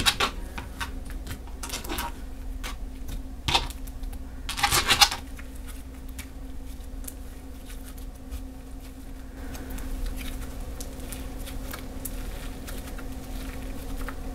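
Butter slime made from white slime and Daiso clay being squished and stretched by hand, giving off scattered small pops and crackles from trapped air, with a louder cluster about five seconds in.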